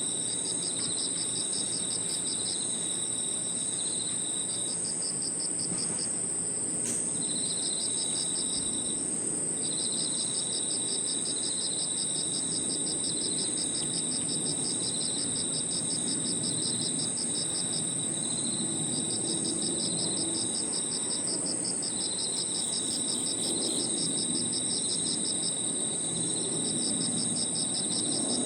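A chorus of crickets and other grass insects singing together: one keeps up a continuous high trill, while others chirp in rapid pulsed trains that stop and start every few seconds.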